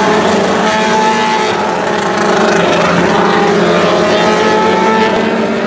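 A pack of Micro 600 sprint cars racing, their 600cc motorcycle engines running at high revs, several engine notes overlapping and shifting in pitch. Loud and steady throughout.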